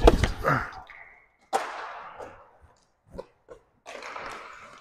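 A heavy thump close to the microphone at the start, then rough scraping of inline-skate wheels and goalie gear on the rink's sport-court floor, in two stretches of about a second each, with a single click between them.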